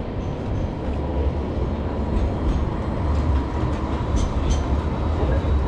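A light rail tram running past close by on street track: a steady low rumble under general city-street noise, a little louder from about a second in, with a few faint short clicks.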